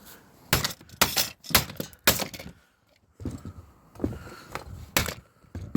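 Plastic and metal parts of a Samsung Xpress M2022 laser printer cracking and clattering as it is broken apart. Four loud sharp cracks come in the first two and a half seconds, then several more after a short pause.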